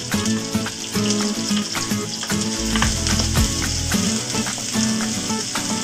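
Chopped onion sizzling as it fries in hot oil with whole spices in a kadhai, stirred with a wooden spatula that clicks against the pan.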